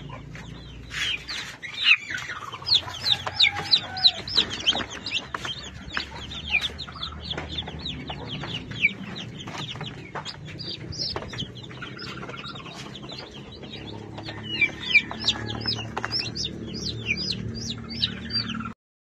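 Native chicken chicks peeping continuously: many short, high, falling peeps in quick succession. A few lower calls and occasional knocks are mixed in.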